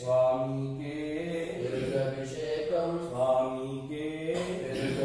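A man chanting mantras for an abhishekam, the ritual bathing of a deity's idol. The chant is in long held notes that step up and down in pitch, in phrases of about two seconds with short breaks between them.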